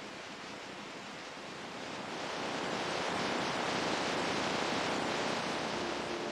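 Ocean waves washing in, a rushing hiss that swells about two seconds in and holds.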